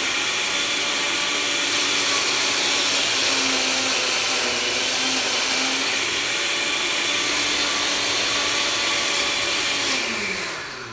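Countertop blender motor running steadily, blending a thick mix of frozen pineapple, vanilla ice cream and pineapple juice; the motor winds down with a falling pitch about ten seconds in as it is switched off.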